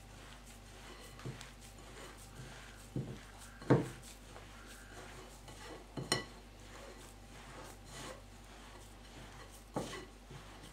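Crumbly cookie dough of flour, margarine, sugar and coconut flakes being mixed by hand in a bowl: soft rubbing with about five short knocks against the bowl, the loudest a little under four seconds in.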